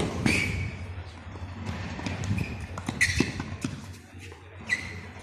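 Tennis rally on a hard court: sharp pops of rackets striking the ball and the ball bouncing, spaced irregularly, with a few short high squeaks and a low murmur of voices underneath.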